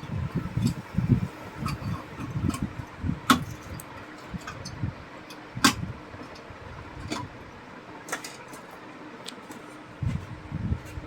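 Handling and hand-tool work on an opened rice cooker as its cut heating-coil wire is reconnected: irregular bumps and rustles with a few sharp clicks, about three in all, over a faint steady hum.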